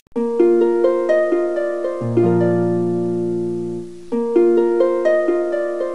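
Background music: a harp-like plucked arpeggio, repeating about every two seconds, over held low notes.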